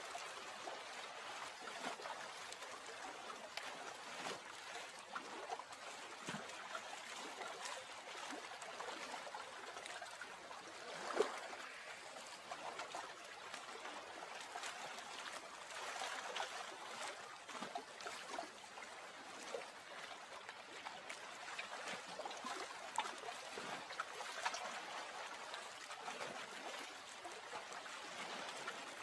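Water gently trickling and lapping in small irregular splashes, with one louder splash about eleven seconds in.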